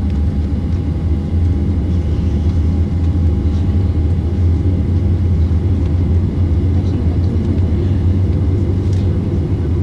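Steady low rumble inside a jet airliner's cabin as it taxis with its engines running, with a faint constant hum over it.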